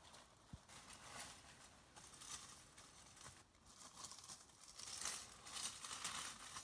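Dry leaf litter and twigs rustling and crackling in irregular bursts as hands work through them, louder in the second half.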